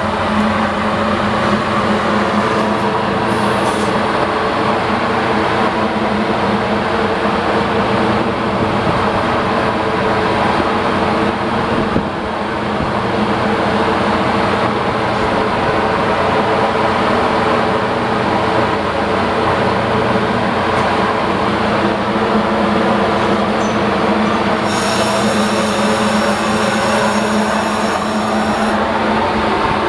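Metra commuter train's diesel locomotive, an EMD MP36PH-3S, running steadily at a flat level with a deep hum of several held tones. About 25 seconds in, a thin high squeal joins it for about four seconds.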